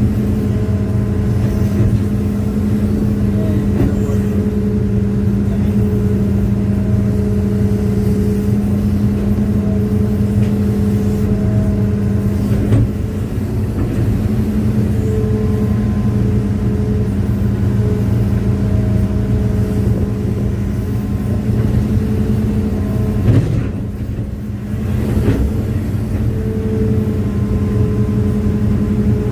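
Hitachi hydraulic excavator's diesel engine running steadily under working load, heard from the operator's seat. Higher whining tones come and go as the hydraulics move the arm, and the sound eases briefly near the end.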